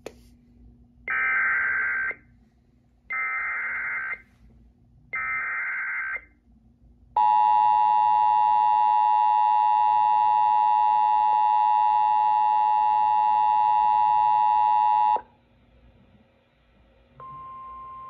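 Sage EAS ENDEC playing back an Emergency Alert System alert. First come three one-second bursts of SAME header data, the squawking digital header, about two seconds apart. Then the two-tone EAS attention signal sounds steadily for about eight seconds and cuts off sharply. After a short pause, a steady single tone begins near the end: the NOAA Weather Radio 1050 Hz warning alarm tone that leads into the recorded severe thunderstorm warning.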